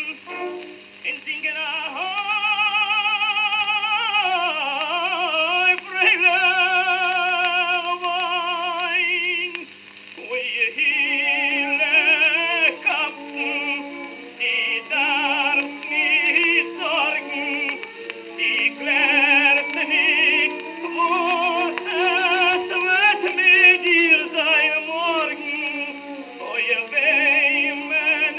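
A 1921 acoustic-era 78 rpm record played on a console record player: a male tenor sings a Yiddish song with heavy vibrato and long held notes, then faster, broken phrases. The sound is thin, with no bass, over a steady record hiss.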